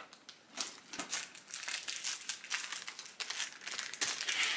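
Crinkling and rustling of food packaging being handled, in irregular bursts that get louder near the end.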